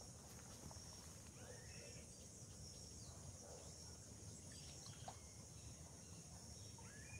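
Near silence: the faint, steady trill of insects, with a few faint bird calls, one about a second and a half in and another near the end.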